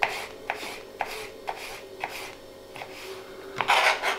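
Small kitchen knife slicing turnip into julienne on a plastic cutting board: light taps of the blade on the board, about two a second, with a louder scraping rustle near the end.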